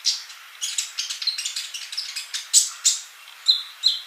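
Sunbird (Indonesian 'kolibri') singing a fast string of short, high chirps and sharp notes, several a second, with two brief level whistled notes near the end.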